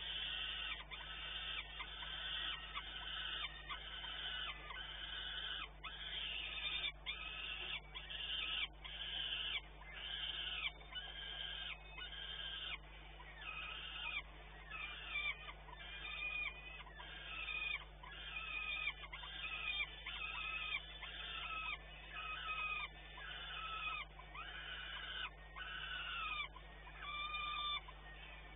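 Peregrine falcon chick calling over and over with harsh begging screeches, a little more than one a second. Many of the calls fall in pitch at the end. A steady low electrical hum runs underneath.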